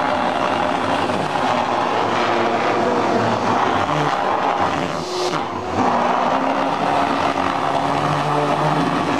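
Vacuum cleaner running with its ribbed hose held against a loose cloth that the suction draws in, making a steady rushing sound with shifting humming tones. The sound briefly drops about five seconds in.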